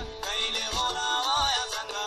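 Nepali film song playing: a singer's voice over instruments with a steady beat.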